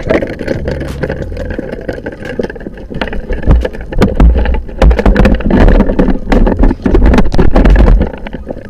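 Underwater rushing and rumble with many scattered clicks and knocks as a freshly speared fish thrashes on the spear close to the camera. It is loudest and heaviest from about three and a half to eight seconds in, then dies down.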